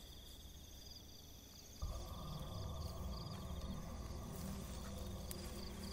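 Night insects, crickets among them, chirping in steady repeating pulses. A low, steady rumble comes in abruptly about two seconds in and stays under the chirping.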